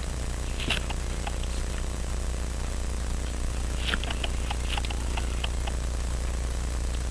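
Faint, irregular light clicks of small metal tools handling watch-movement parts, over a steady low hum.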